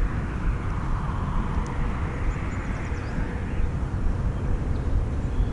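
Wind buffeting the boat-mounted camera's microphone: a steady low rumble.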